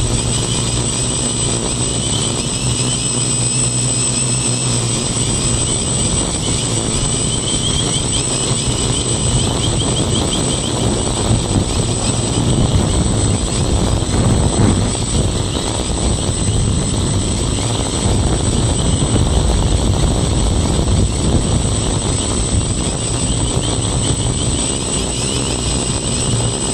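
Quadcopter's brushless motors and propellers buzzing steadily in flight, heard close up from a phone strapped to the frame. The faint tones in the buzz waver a little in pitch.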